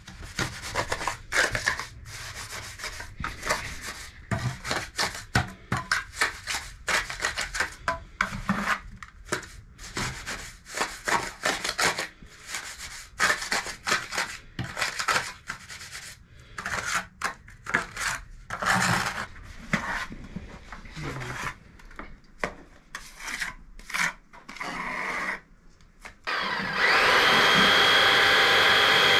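A steel trowel scrapes and packs stiffening light masonry mortar into a joint between aerated-concrete (Ytong) blocks, giving many short, irregular scraping and rubbing strokes. Near the end an electric chainsaw starts up and runs loudly and steadily.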